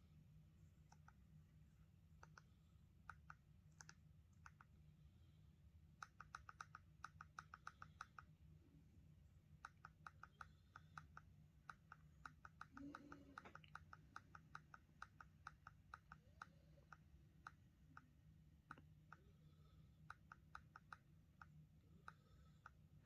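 Faint clicking of a TV remote control's buttons pressed over and over, in quick runs of about five clicks a second, over a low steady hum.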